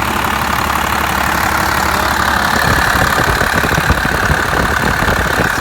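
Second-gen Dodge Ram Cummins 5.9-litre inline-six diesel idling loudly and steadily. A high, steady whine grows stronger about two seconds in, and an uneven low rumble joins it.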